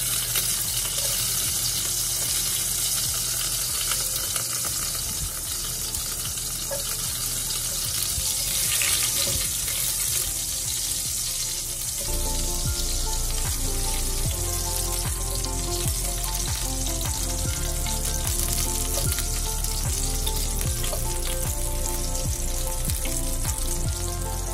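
Chopped garlic sizzling as it hits hot oil in a stainless steel pot and is stirred with a silicone spatula, a steady frying hiss. Background music comes in about halfway.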